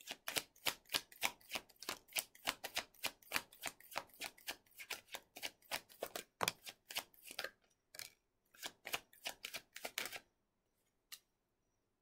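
A tarot deck being shuffled by hand, the cards slapping and riffling against each other in a quick, even run of about four strokes a second. The shuffling stops about ten seconds in, followed by one last card tap.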